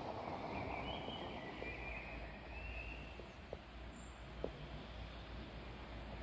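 Faint outdoor town ambience: a steady low rumble of distant traffic, with a few faint short high chirps in the first half and a few light clicks around the middle.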